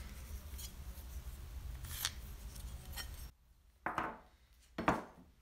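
Light scratching and small clicks of a marker being drawn across PVC pipe couplings as they are handled, then two short, louder scrapes near the end.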